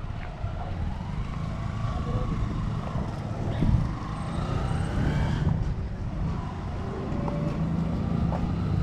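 Street traffic: a motor vehicle's engine running nearby as a steady low rumble, with faint voices in the background.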